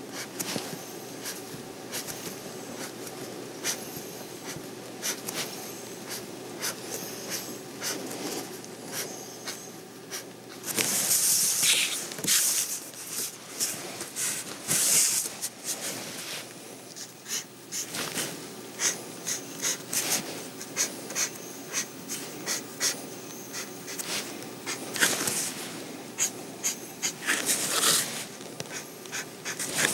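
Ink pen scratching on paper in short ticks and longer hissing strokes every few seconds, over a steady low hum.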